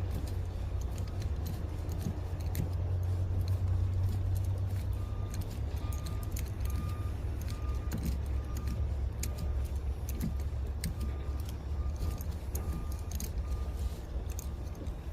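Small metallic clicks and rattles from a Torx driver turning the T20 bolt back into the door handle's retainer, over a steady low rumble. From about five seconds in until near the end, a faint electronic beep repeats about twice a second.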